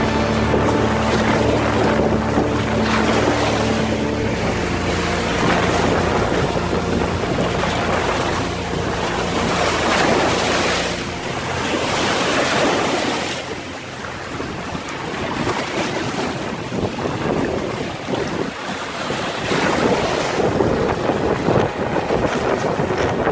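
Storm surf breaking on shoreline rocks in a strong gusty wind, the crash and wash of the waves swelling and easing every few seconds, with wind buffeting the microphone.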